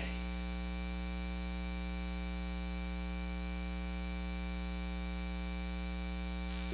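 Steady electrical mains hum, a constant buzz with many even overtones and no change in level.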